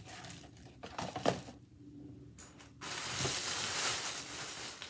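Plastic bag crinkling loudly as it is picked up and handled, starting about three seconds in, after a few light knocks.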